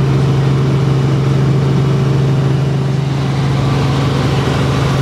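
Helicopter engine and rotor noise heard from inside the cabin: a loud, steady drone with a strong low hum.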